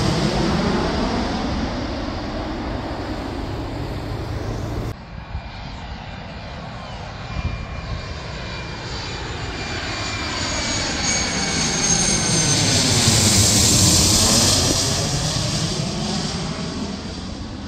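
Twin-engine jet airliners flying low overhead. One jet passes and fades. After a sudden cut about five seconds in, another jet approaches, grows loudest about 13 to 14 seconds in as it passes overhead, then recedes with a high engine whine above its rumble.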